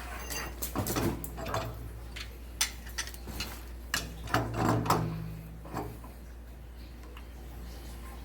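Clicks and light metallic knocks of tools and fittings being handled while working on a water heater, busiest in the first six seconds, over a steady low hum.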